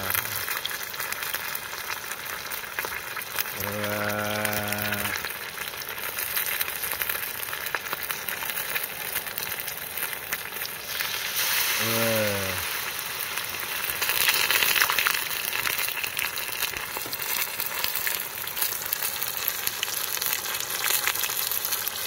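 Battered food deep-frying in a small pot of hot oil: a steady bubbling sizzle and crackle that grows louder from about eleven seconds in. A brief low hum sounds three times, the longest about four seconds in.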